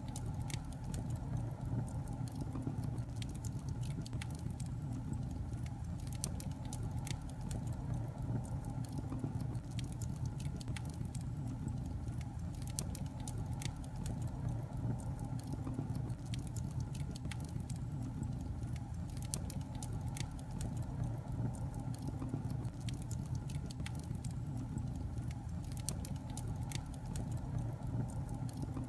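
Fireplace fire burning: a steady low rumble of flames with many small, irregular crackles and pops.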